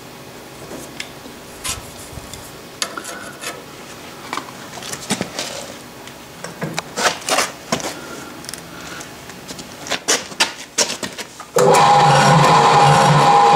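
Faint, irregular clicks and light scrapes of metal. About eleven and a half seconds in, loud background music cuts in suddenly.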